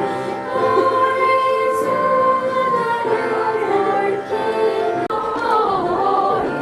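A choir singing in harmony, holding long notes. The chords change after about five seconds into a more moving phrase.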